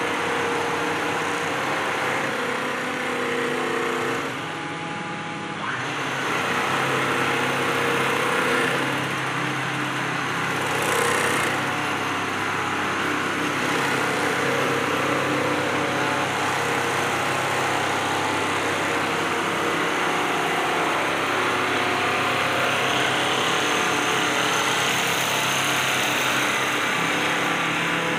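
Richpeace single-head computerized quilting machines running, several at once, giving a steady mechanical hum with a few held tones. The hum dips slightly about five seconds in.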